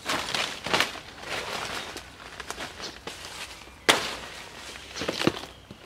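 A sword blade slashing into a banana plant and its dry hanging leaves: crackling rustles of dry leaf, with one sharp chop about four seconds in and more short slashes near the end.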